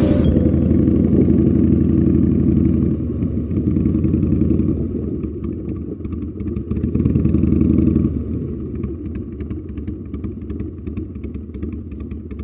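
Harley-Davidson V-twin motorcycle engine running at low speed on light throttle. About eight seconds in the throttle eases off and it runs more quietly.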